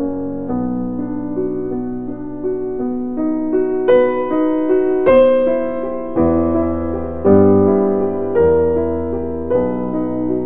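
Background music: a slow piano piece, with held notes and chords changing about once a second.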